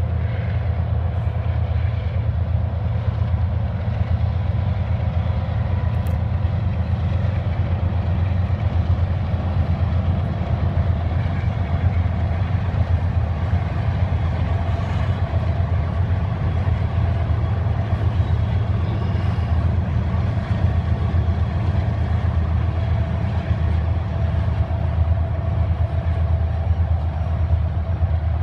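Diesel-hauled freight train of Norfolk Southern locomotives passing at a distance, a steady low rumble with faint steady higher tones over it.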